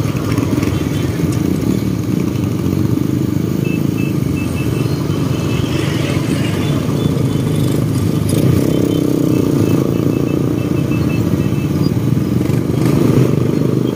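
Small motorcycle engines running steadily as a convoy of motorcycles rides along, heard from a moving motorcycle with road and wind noise.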